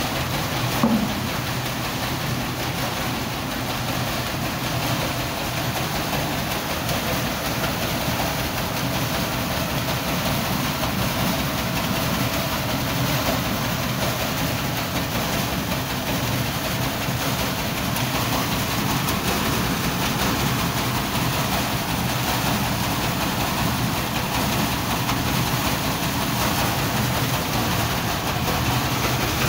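Three-screen vibrating sieve running, a steady mechanical rattle over a constant low hum as grain is shaken through its screens. A brief knock about a second in.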